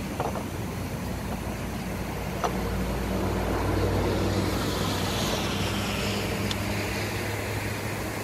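Motor vehicle noise: a steady low engine hum under traffic noise, swelling as a vehicle passes about three to six seconds in, its pitch falling. A few faint clicks.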